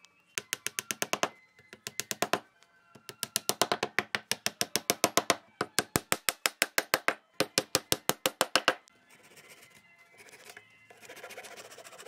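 Rapid runs of sharp wooden knocks, about nine a second, in five bursts. Near the end, a hand saw rasps through the dowels.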